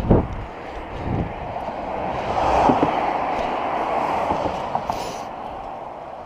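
A car passing close by on the road, its tyre and engine noise swelling to a peak two to three seconds in and then fading. A single sharp thump at the very start.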